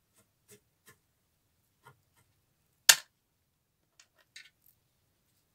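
Small objects being handled: several faint taps and clicks, with one sharp, much louder click or knock about three seconds in and a brief cluster of small clicks about a second later.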